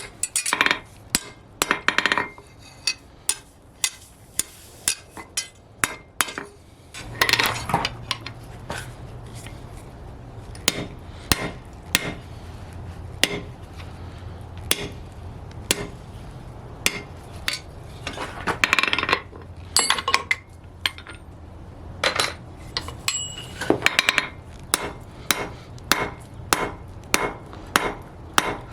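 Blacksmith's hammer striking steel flat bar on an anvil while forging: a long run of sharp, ringing blows, about one to two a second, with bursts of quicker, lighter taps. A low steady hum comes in about a quarter of the way through.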